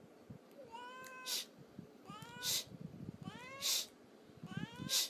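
Domestic cat meowing four times, about a second apart, each meow followed by a short hissing noise.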